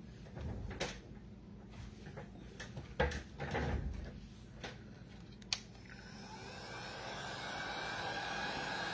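A few knocks and clicks of things being handled on a tabletop, then about six seconds in a handheld heat gun switches on and runs with a steady blowing whir, drying wet paint.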